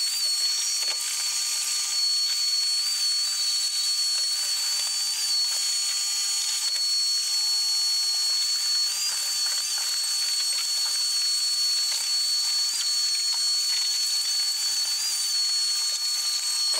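Shop vacuum running steadily with a high whine, its hose sucking up dirt and leaf litter from a vehicle's floor.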